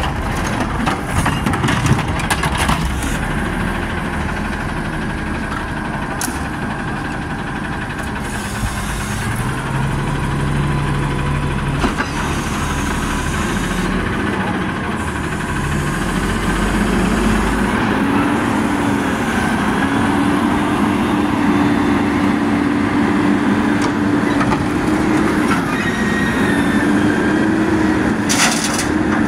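Front-loading garbage truck's diesel engine revving hard to drive the hydraulic front arms as they lift a bin over the cab and dump it, with metal knocks from the bin and forks in the first few seconds. The engine pitch rises about halfway through and stays high, dipping briefly near the end.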